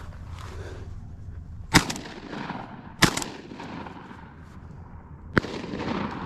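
Shotgun fired three times at doves: two loud shots about a second and a half apart, then a quieter third shot a couple of seconds later, each with a short echo.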